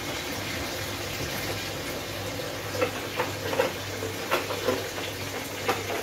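Tap water running steadily into a plastic basin as it fills. A few light clicks and knocks come in from about halfway through.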